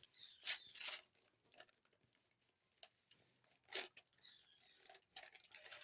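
Packaging being worked open by hand: faint, scattered rustles and tearing sounds, with a few sharper crinkles about half a second in, near one second, and just before four seconds.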